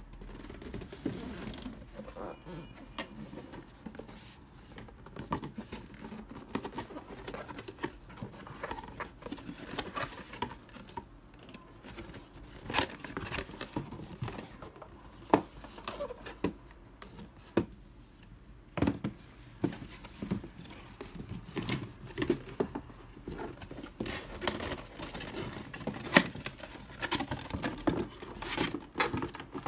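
Corrugated cardboard box being opened and its flaps and inner folds handled: irregular scraping, rubbing and creasing of the board with sharp taps and clicks, growing busier in the second half.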